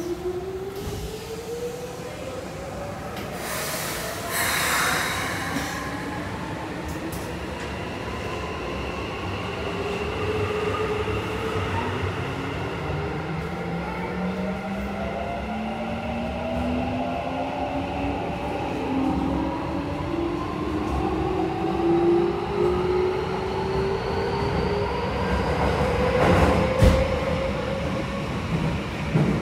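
Keikyu 1000 series train's Mitsubishi IGBT-VVVF inverter and traction motors, heard from inside the car, whining in several tones that rise steadily in pitch as the train pulls away and accelerates, over wheel and rail running noise. The rising tones fade out near the end, and there are short bursts of noise about four seconds in and again near the end.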